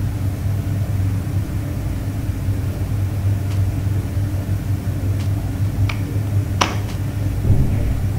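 Steady low machine hum throughout, with a few light metal clicks as engine parts are handled on the block, the sharpest about six and a half seconds in.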